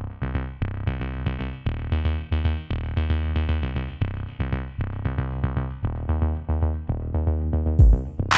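Background music: electronic music with synthesizer notes over a steady beat.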